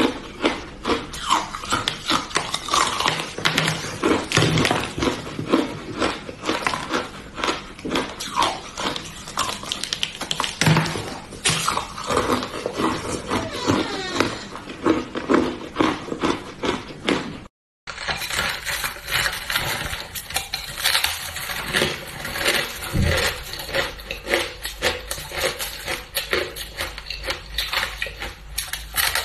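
Close-up crunching of frozen ice being bitten and chewed, with dense irregular crackles and snaps in quick clusters. First it is a hard slab of crystalline coloured ice. After a brief dropout a little over halfway, the crunching goes on with a block of packed shaved ice.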